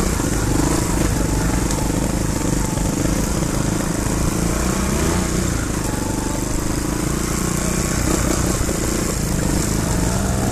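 Trials motorcycle engines running steadily as the bikes ride a dirt trail, heard from on board a following bike, the pitch wavering a little with the throttle.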